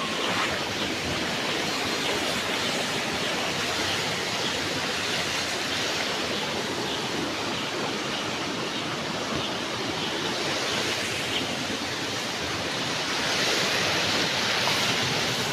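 Steady rush of a waterfall, swelling slightly near the end.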